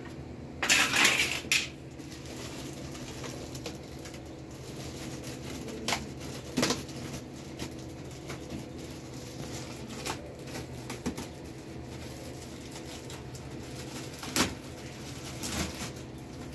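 Anti-static bag around a new boiler circuit board crinkling as it is unwrapped and handled, loudest about a second in, with scattered light clicks and taps. A steady low machine hum runs underneath.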